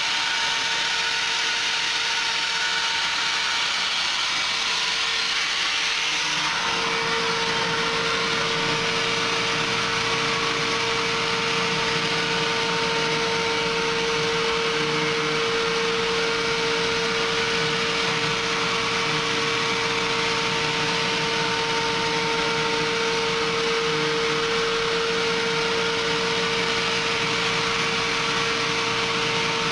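Desktop CNC milling machine running a G-code program, its spindle and end mill cutting a groove along a wooden CO2 dragster blank with a steady whine. The whine grows louder about six to seven seconds in.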